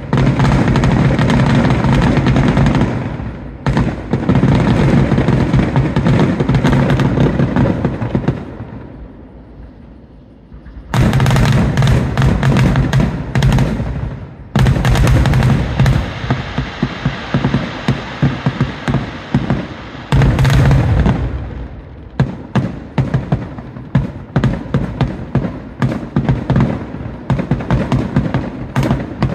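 Fireworks finale barrage: rapid, overlapping aerial shell bursts and crackle with a steady low rumble. The volley dies away about nine seconds in, resumes sharply about two seconds later, and near the end breaks into more separate bangs.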